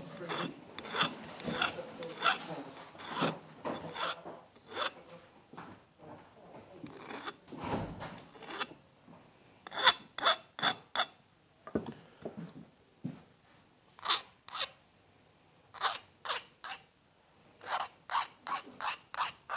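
A small hand file scraping in short strokes along the metal edges and mouth of a Stanley 60 1/2 block plane, easing off hard corners. The strokes come in quick runs broken by short pauses.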